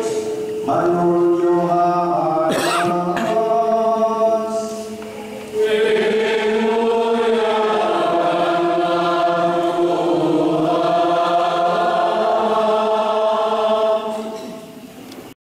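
Voices singing a slow liturgical chant together, holding long notes that shift every few seconds. The singing fades near the end and then cuts off abruptly.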